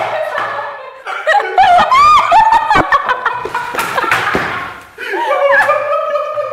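A small group of people laughing hard together, with high squealing laughs and giggles that are loudest in the middle, easing briefly before another burst near the end.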